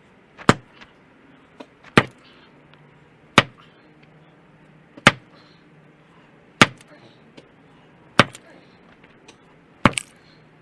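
A boulder in a trench being broken up by hand: a heavy hand tool strikes the rock seven times, sharp blows about one and a half seconds apart.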